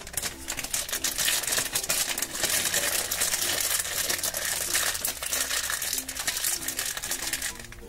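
Plastic blind-bag packaging and the clear plastic wrapper inside it crinkling as they are torn open and worked off a small toy figure: a dense, continuous crackle that stops shortly before the end.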